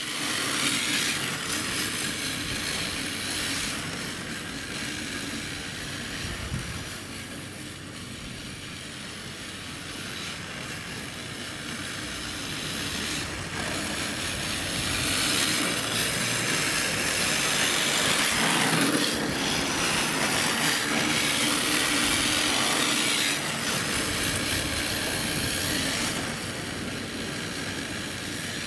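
Electric radio-controlled drift car running and sliding on asphalt: a high-pitched motor whine with tyre hiss that rises and falls as it drifts, loudest around the middle.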